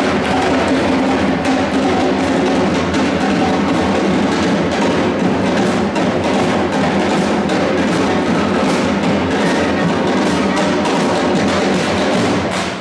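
Carnival charanga's instrumental interlude between sung verses: loud band music driven by drums and percussion, cutting off at the very end.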